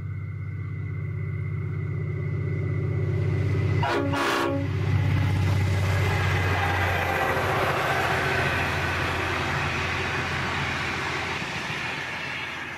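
Full-size diesel locomotive passing with a freight train: its engine drones steadily, it sounds one short blast on its multi-note horn about four seconds in, then the wagons roll past with a loud steady rushing rumble.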